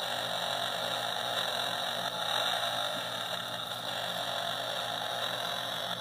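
Sound button of a Harley-Davidson 'lil' biker baby' soft baby book playing a recorded motorcycle engine running steadily.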